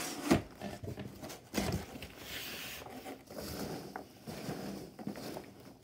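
Hands rummaging through a cardboard box full of foam packing peanuts, a dry rustling and shuffling. There is a sharp knock just after the start and a duller thud about a second and a half in.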